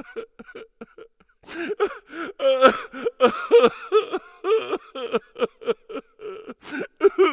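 A person's voice making a run of short wordless vocal sounds with sliding pitch.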